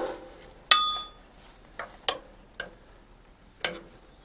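A large screwdriver used as a pry bar clinking and knocking against metal as it is worked into a fan belt looped around a truck air dryer cartridge as a makeshift strap wrench. A sharp clank right at the start, a ringing metallic clink just under a second in, then four lighter knocks.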